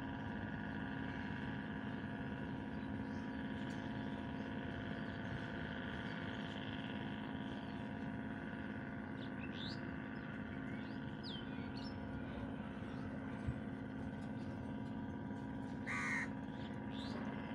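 A crow cawing once near the end, a few seconds after some short bird chirps, over a steady hum with several held tones.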